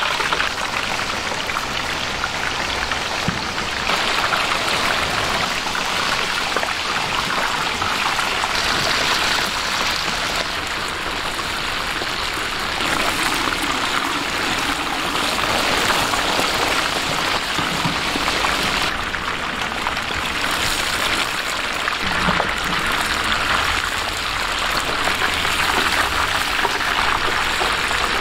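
Chicken deep-frying in hot oil: a steady, dense sizzle whose tone shifts every few seconds.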